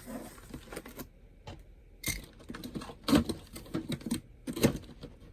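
Handling noise from an opened DVD player box and its contents being checked: irregular clicks and knocks, with a few louder knocks about two, three and four and a half seconds in.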